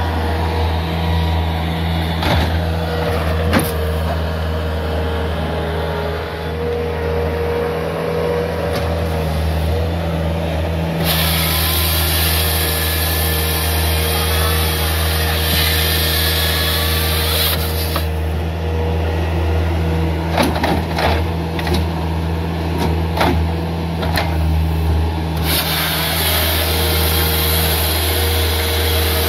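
Skid steer engine running steadily at high revs to power a hydraulic grapple saw. The saw's chain cuts through a log from about 11 to 18 seconds in, and again from about 25 seconds on, adding a loud high-pitched hiss. There are a few short clunks between the cuts.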